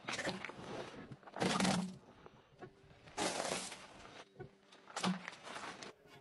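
A car tyre rolling over and crushing small objects: four short bursts of cracking and crunching, the loudest about one and a half seconds in.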